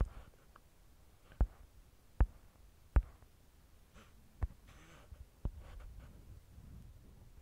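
Fingertip taps on a smartphone touchscreen: about six sharp, separate clicks at uneven intervals, with faint room hiss between them.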